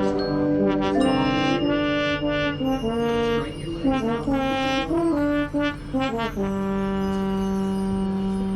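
Marching band brass playing loud held chords, with a stretch of short, punched notes in the middle and a long sustained chord from about six seconds in.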